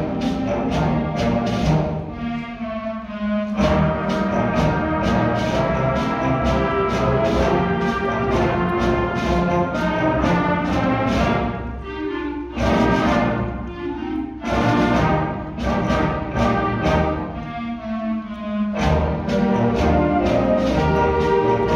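Middle school concert band playing live in an auditorium: brass and woodwinds holding sustained chords over a steady percussion beat, with a few short lighter passages.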